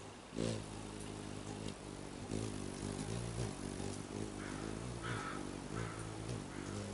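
An engine running nearby with a steady low hum. It starts about half a second in, swells and dips a few times without changing pitch, and cuts off near the end.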